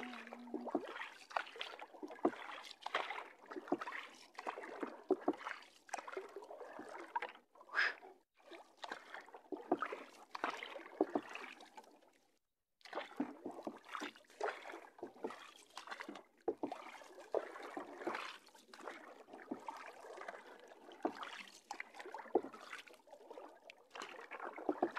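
Wooden paddle working the water beside a small outrigger canoe: irregular splashes and drips from each stroke, with water sloshing along the hull. The sound breaks off for a moment about halfway through.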